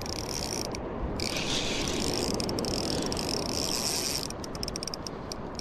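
Fishing reel ratcheting under the pull of a hooked fish, its drag set fairly tight. The rattle grows louder from about a second in and eases off after about four seconds.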